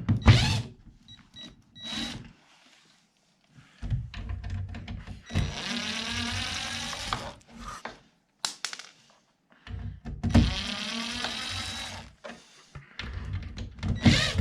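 Power drill driving door-hinge screws in two runs of a few seconds each, its pitch wavering as it runs; a few short knocks come before the first run.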